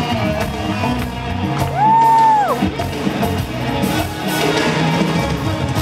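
Live band music with horns, keyboards, bass, drums and percussion, heard from the audience. About two seconds in, one high note is held loud, bending up at its start and falling off at its end.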